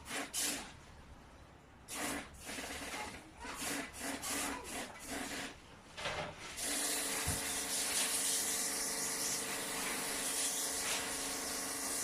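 Irregular rubbing and scraping strokes, the sound of an air conditioner being scrubbed. About six and a half seconds in, a steady spray starts, a constant hiss with a motor's hum under it, from a cleaning sprayer washing the unit.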